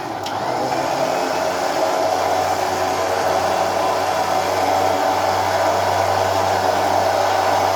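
Electric winch motor on a UAZ Patriot running steadily in reverse, paying out its cable, with a low hum that grows stronger about two seconds in.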